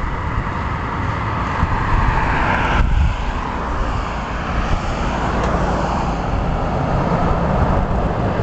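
Road traffic going by, the noise of passing vehicles swelling and fading twice, over a steady low rumble.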